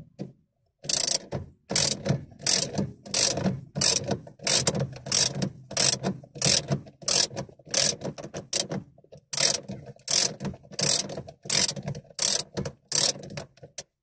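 Socket ratchet wrench unscrewing the steering-wheel bolt in repeated strokes. Each swing of the handle gives a short run of pawl clicks, about three swings every two seconds, with a brief pause partway through.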